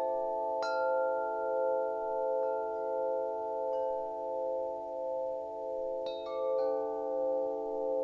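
Wind chimes ringing: a few scattered strikes, and a cluster of them about six seconds in, over long-sustaining low tones that slowly pulse as they fade.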